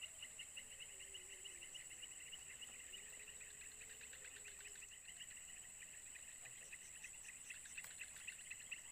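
Faint insect chorus: a steady high-pitched hum under a fast, pulsing chirp that repeats several times a second.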